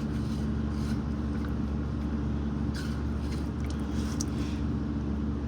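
Electric fan running with a steady low hum, with a couple of faint clicks.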